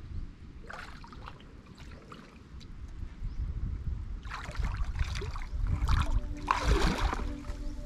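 Shallow muddy water splashing and sloshing as a person wades through it and works her hands in the mud underwater. A short splash about a second in, then heavier splashing from about halfway, loudest near the end as she steps through the water.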